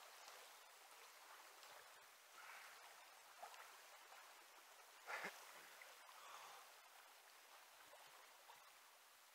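Faint, steady rush of river current running over rocks, with one brief louder sound about five seconds in.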